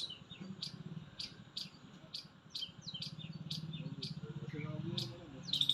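A small bird chirping over and over, short high chirps at about two a second, with a low hum underneath for a couple of seconds in the middle.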